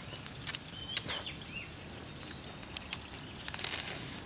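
Scattered sharp clicks and crackles, with a brief rustling crunch near the end. A few short high chirps sound about a second in.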